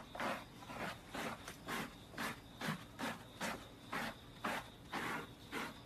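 A hand-held scrub brush rubbing back and forth through a dog's wet, soapy coat, in quick, regular scratchy strokes, about two to three a second.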